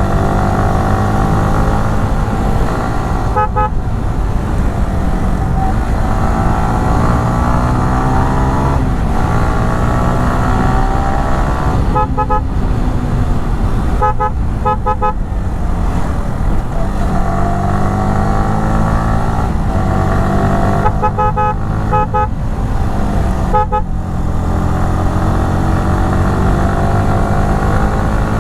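Yamaha R15 V3's 155 cc single-cylinder engine through its stock exhaust, revving up again and again as the bike accelerates, with a short drop in the sound at each gear change or throttle lift, several times over.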